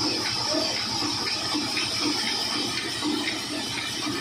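Band sawmill running: a steady mechanical hiss and low hum, with a faint pulse about three times a second, as the log carriage moves along its rails toward the blade.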